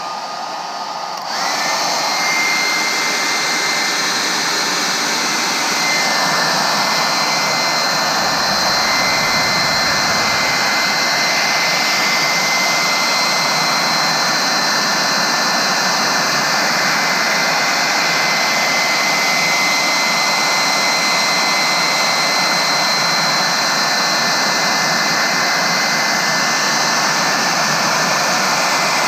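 Handheld hot-air blower running steadily: a rush of air with a high fan whine that steps up about a second in and then holds. It is heating the adhesive to free a touchscreen digitizer.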